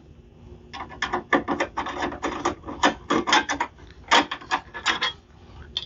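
Phillips screwdriver backing screws out of a sheet-metal access panel: an irregular run of quick metallic scraping clicks.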